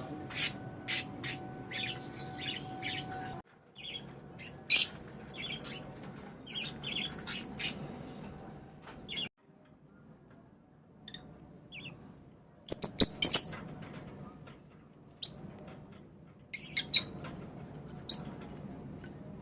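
Baby budgerigars chirping in short, high-pitched calls, scattered and irregular, with a louder flurry of calls about two-thirds of the way through.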